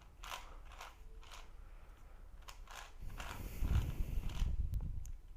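Plastic Shengshou 5x5 puzzle cube being handled and turned: scattered light clicks, then a busier stretch of clacking and rubbing about three seconds in.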